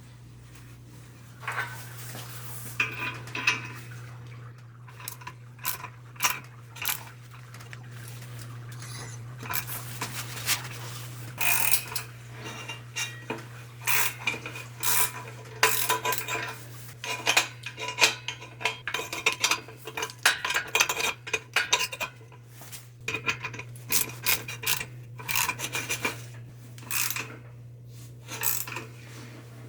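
Steel hand tools and puller parts clinking and clanking: a string of sharp metallic clinks with a short ringing tone, coming thicker after the first ten seconds, over a steady low hum.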